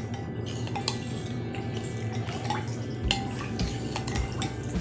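A spoon stirring tamarind water in a glass bowl, clinking against the bowl with the liquid swirling; a few sharper clinks come in the second half.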